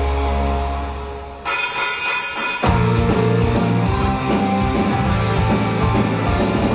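Loud rock music with electric guitar and drums. A held low chord fades out, a short bright high-pitched passage comes in about a second and a half in, and about a second later the full band kicks in with a driving beat.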